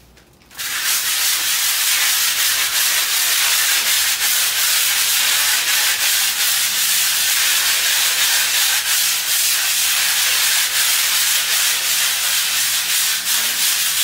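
Coarse 80-grit sandpaper rubbed by hand over a rough rendered wall, a steady hiss of sanding that starts about half a second in. The wall is being sanded to knock down the roughest spots before skim-coating.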